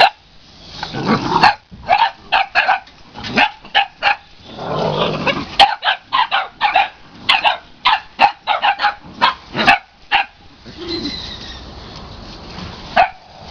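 Boxer puppies barking in quick, short barks, many in a row, easing off about ten seconds in, with a couple more barks near the end.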